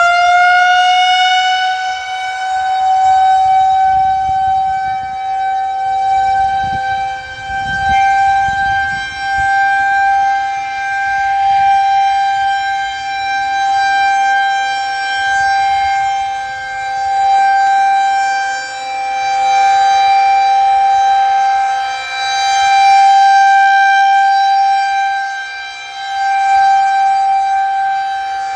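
Federal Signal 2001-130 rotating outdoor warning siren sounding a steady alert for a tornado warning. It winds up briefly at the start, then holds one steady pitch, swelling and fading about every four seconds as the rotating horn sweeps past.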